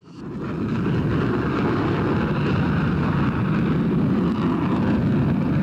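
F-15 fighter jet's engines running on the flight line: a steady low rumble with a rushing hiss, fading in over the first half second.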